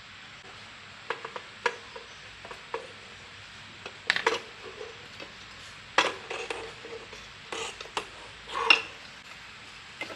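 Metal parts and tools clinking and clattering as they are handled during work on a generator. There are a few light clicks early on, then louder clatters about four seconds in, about six seconds in, and the loudest near the end.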